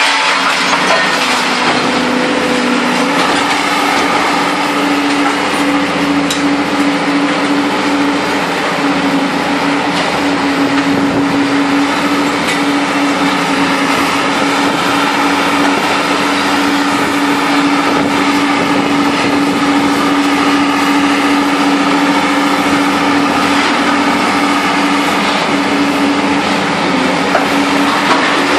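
Heavy hydraulic scrap-handling machinery running steadily: a constant drone with one strong hum, from the Bonfiglioli Squalo 2000 inclined shear and the material handler feeding it. Faint clanks of scrap metal come through as the grab works over the shear box.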